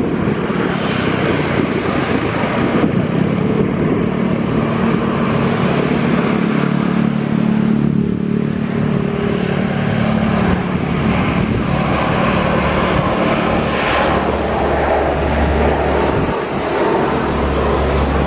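Lockheed C-130 Hercules's four turboprop engines and propellers running as it rolls along the runway: a loud, steady drone with a pitched hum, the low rumble growing stronger in the last few seconds.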